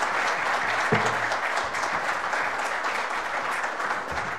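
Audience applauding: many hands clapping together in a steady, dense patter, with a dull low thump about a second in.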